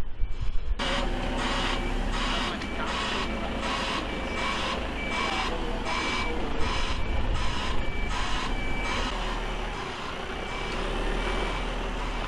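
Heavy-haulage truck's reversing alarm pulsing about two times a second over the steady running of its diesel engine, starting about a second in as the rig manoeuvres slowly.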